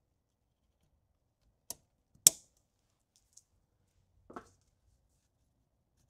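Cutters snipping off the tail of a nylon zip tie: one loud sharp snap about two seconds in, among a few quieter clicks and a dull knock from handling.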